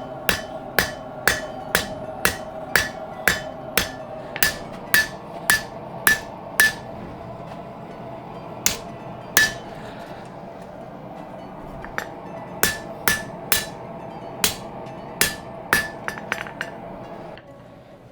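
Blacksmith's hammer striking hot spring steel on the anvil, about two blows a second with a brief metallic ring after each, then pausing and resuming in irregular groups. A steady hum runs underneath and stops near the end.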